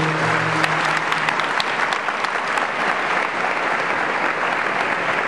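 Audience applauding: a dense, steady clatter of many hands clapping. A held musical note dies away in the first half second.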